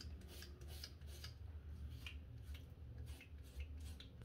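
Gillette SkinGuard two-blade cartridge razor scraping through two to three days of stubble on the neck with no shaving cream: a quick run of short, faint rasping strokes.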